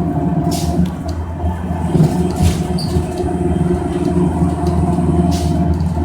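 Cabin of a NABI Metro 45C transit bus under way: the Cummins Westport ISL G natural-gas engine's steady drone with road noise, heard from inside the bus. Three short hisses come through it, about half a second in, around two and a half seconds, and near the end.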